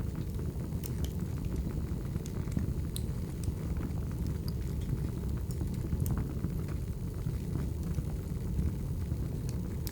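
Wood fire burning, a steady low rumble with irregular sharp crackles and pops from the burning logs.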